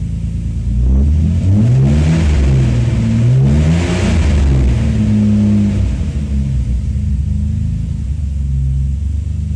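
Nissan Skyline R32 GT-R's twin-turbo RB26DETT straight-six, heard from inside the cabin, idling and then free-revved while parked in several blips from about a second in, settling back to idle near six seconds, with a smaller blip near the end.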